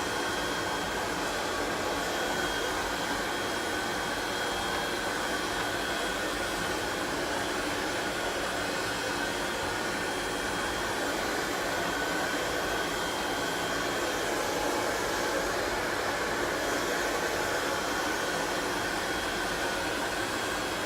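Heat gun running steadily: an even rush of blown air with a faint high whine.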